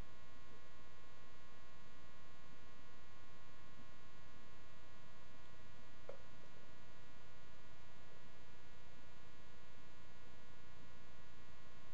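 Steady electrical mains hum with a buzzy edge, unchanging in level.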